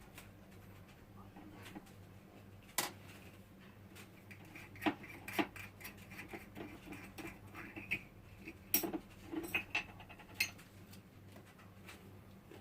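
Kitchen utensils and containers being handled: scattered light clicks, taps and clinks, with a few sharper knocks.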